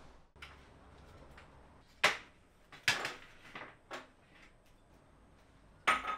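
Kitchen items being handled and set down on a tray and countertop: a series of sharp knocks and clinks in a quiet room, loudest about two seconds in, about three seconds in and near the end.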